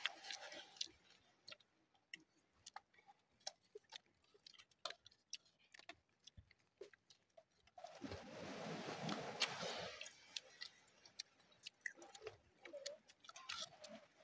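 Quiet eating sounds from a meal of grilled fish and rice taken by hand: scattered small clicks and taps of fingers and a spoon on plates, with chewing. A louder, muffled low stretch comes about eight seconds in.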